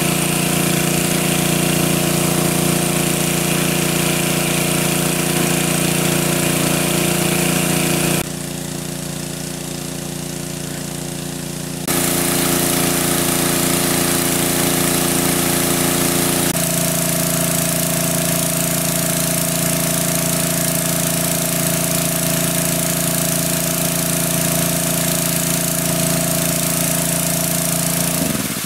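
Engine of a large water pump running steadily with a loud, even drone. The sound turns abruptly quieter and duller about eight seconds in, comes back about four seconds later, and its hum shifts to a slightly different pitch a little past the middle.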